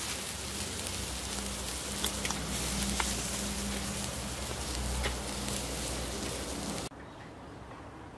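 Lamb kebabs in a wire grill basket sizzling and crackling over the grill, with a few sharp pops. The sound drops off suddenly near the end to a faint, even hiss.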